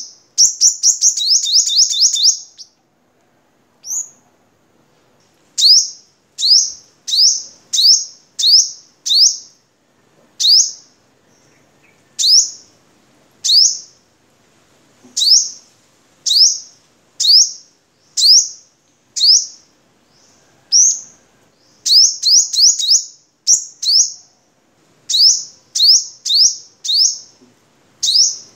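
Male sunbird singing: a fast trill of high, sharp chirps at the start, then single chirps each sweeping quickly through its pitch, about one or two a second, with another quick run of chirps a little past the middle.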